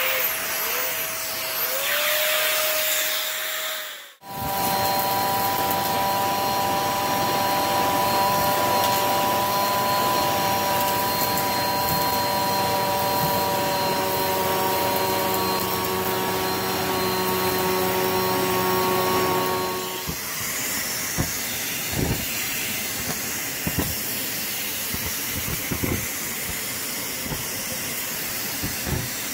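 Vacuum cleaners running in three clips. First a stick vacuum on a rug, cut off about four seconds in. Then a hose vacuum with a crevice tool on carpet, a steady whine with several held tones. From about twenty seconds in, a vacuum wand sucks up piles of lint from carpet: a steadier rush with scattered crackling ticks.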